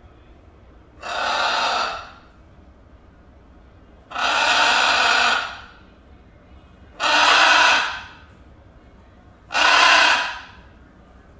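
Blue-and-gold macaw giving four harsh, drawn-out calls about three seconds apart, each lasting about a second. The calls are raised at a fly on the wall, which the owner answers with "it's just a fly."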